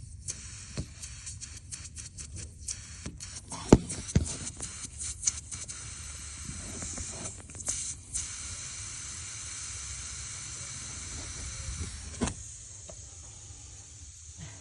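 A steady faint hiss of water escaping under pressure from a small leak in a copper pipe at a crossover, the pipe worn through by age and wear. Fingers handling the wet pipe make short clicks and a few sharp knocks.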